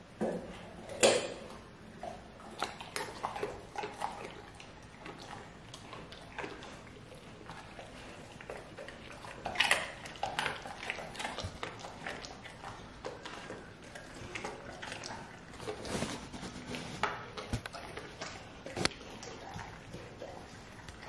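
Golden retriever chewing raw carrot: wet chomping broken by irregular sharp crunches, the loudest about a second in, near the middle and near the end.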